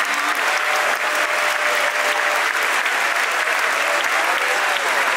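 A large audience applauding steadily, a long ovation of continuous clapping.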